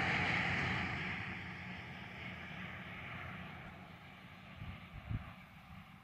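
A passing vehicle's road noise, loud at first and then fading steadily as it moves away, with a couple of soft low thumps near the end.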